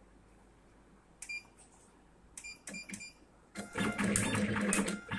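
Short keypad beeps from an automatic wire cutting and stripping machine, once about a second in and a few quick ones a little later. About three and a half seconds in the machine starts its cycle: a loud mechanical whirr with a steady hum and rapid clicks as it feeds, cuts and strips a wire.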